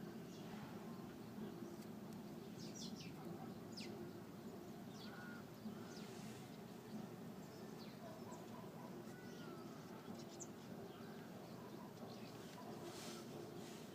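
Faint outdoor background: a steady low hum with scattered short bird chirps.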